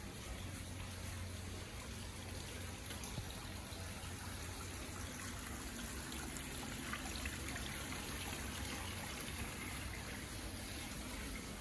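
Steady trickle of water from a small ornamental stream running among rocks and plants.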